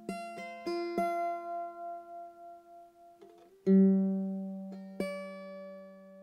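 Background music on a plucked guitar: a few quick notes, then two slow low chords that ring and fade.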